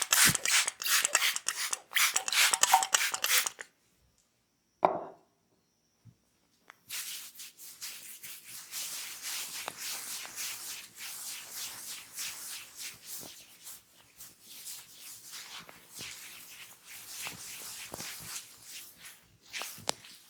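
Hands working a massage. It opens with fast, loud rapid-fire tapping strikes. After a short silence there is a single short pop. Then comes a long stretch of quieter, continuous rubbing and patting of hands on skin and hair.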